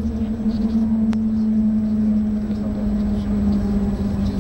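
Interior of the Shanghai Transrapid maglev train decelerating: a steady electric drive hum slowly falls in pitch as the train sheds speed, over a low running rumble. A brief click sounds about a second in.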